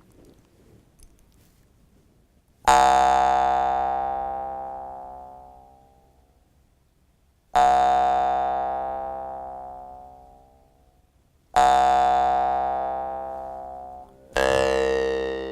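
A bell struck four times, each strike ringing out and dying away slowly over a few seconds. The last strike comes sooner than the others, and its tone wavers and bends slightly in pitch.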